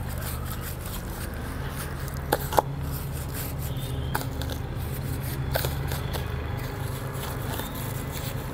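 Knife cutting incisions into a whole raw pig on a wooden cutting board: faint scraping with a few sharp clicks, over a steady low hum.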